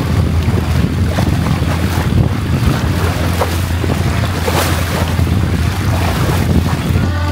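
Boat motor running steadily with a low drone, with wind buffeting the microphone and water rushing past.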